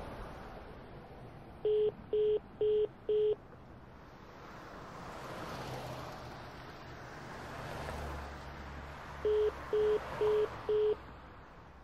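Mobile phone call tone: two runs of four short, evenly spaced beeps about eight seconds apart, the sign of a call that is not getting through.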